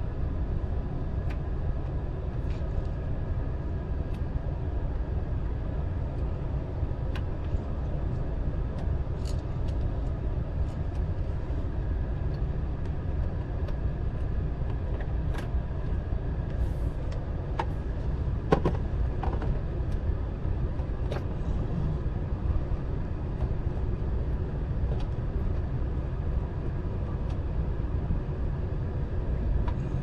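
Steady low rumble of a running car, with a few light clicks scattered through it.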